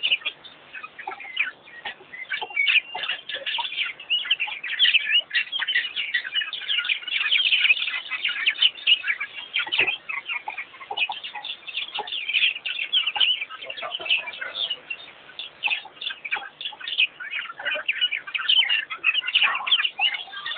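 Dense chorus of many wild birds calling at once: short, high chirps and calls overlapping continuously, with no gap.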